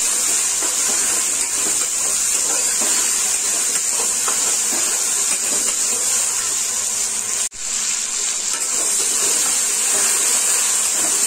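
Tomatoes and onions frying in oil in a steel kadhai, a steady high sizzling hiss, with light scrapes of the spatula as they are stirred. The sizzle drops out for an instant about seven and a half seconds in.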